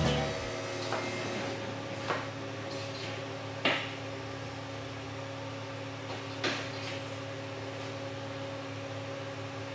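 Steady electrical hum of a robotic welding cell, broken by four scattered clicks and clunks, the loudest a little under four seconds in. Meanwhile a positioner turns an aluminum dock frame in its welding fixture.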